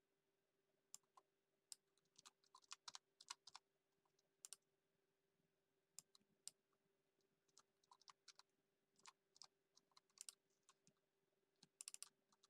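Faint computer keyboard typing: irregular keystrokes in short runs, with a quick cluster of clicks near the end.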